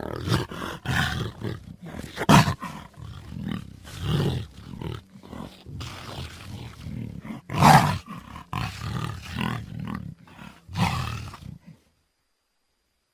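Jaguar (Panthera onca) roaring in a series of rough calls of uneven length, the loudest about two seconds in and again near eight seconds. The calls stop shortly before the end.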